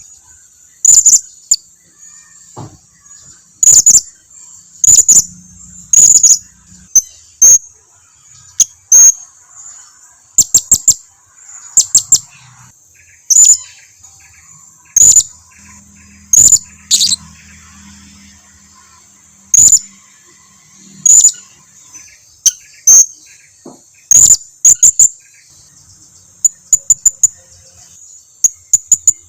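Blue-crowned hanging parrot (serindit) giving sharp, very high-pitched chirps, singly or in quick pairs and triplets, about every one to two seconds, over a faint steady high buzz. This is a serindit lure call, used to make other serindits answer.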